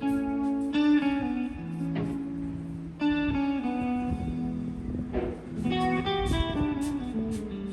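Background music led by plucked guitar, with sustained notes changing about every half second over a soft, light beat.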